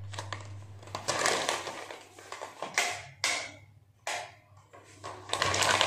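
Crinkling of a plastic packet of poha (dry flattened rice) being handled, in several bouts of crackly rustling with short pauses between.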